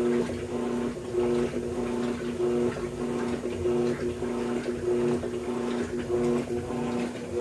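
Electrolux LT13B washing machine agitating: a steady motor hum with water swishing, briefly breaking off about once a second as the agitator reverses direction.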